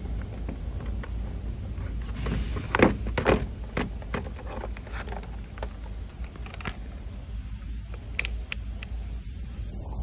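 Handling noise: scattered clicks and light knocks as multimeter probes are worked against a pulled 175-amp fuse, the loudest about three seconds in, over a steady low rumble.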